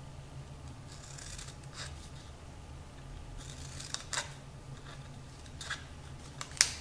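Metal scissors snipping into an adhesive bandage strip: a few quiet, separate snips, the sharpest near the end.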